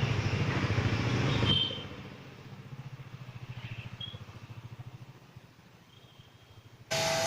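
Pressure washer motor and pump running with a fast pulsing drone, which drops away about a second and a half in and dies down to a faint pulsing. Near the end a loud rushing noise starts abruptly.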